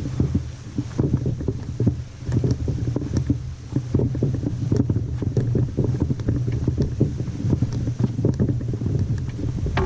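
Strong wind buffeting the microphone, a steady low rumble, with frequent small knocks and clatter throughout.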